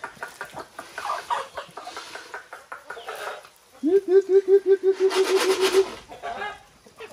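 Flock of free-range chickens clucking around scattered feed. About four seconds in comes a loud, rapid run of evenly repeated pitched calls, about seven a second for some two seconds.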